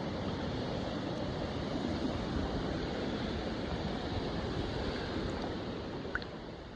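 Steady rush of flowing creek water, fading out near the end, with a brief high chirp just before the fade.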